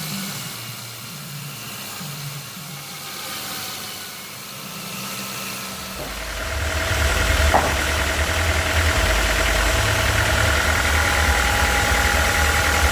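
An engine running steadily: quieter at first, then from about six seconds in it gets louder and deeper and keeps running that way.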